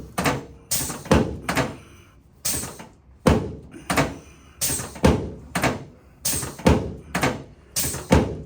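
Repeated heavy thuds, about two a second, from a chiropractic adjustment on a treatment table.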